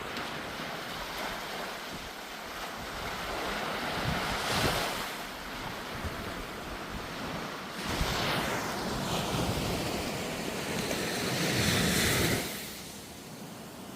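Sea waves breaking and washing in, with wind blowing across the microphone. A bigger surge comes in about eight seconds in, builds to the loudest point, then falls away quickly near the end.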